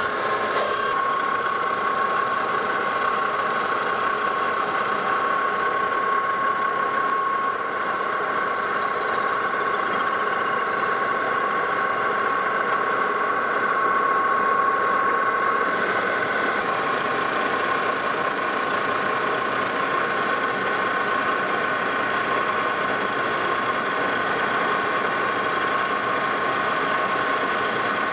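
Metal lathe running at a steady speed with an even whine from its drive, having spun up just before, while a plastic blank is faced and hollowed out.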